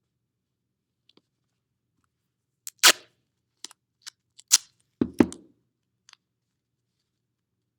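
Duct tape being handled: a few short, sharp rips and clicks as a small piece is pulled off the roll and torn, with a couple of knocks on the cardboard around five seconds in.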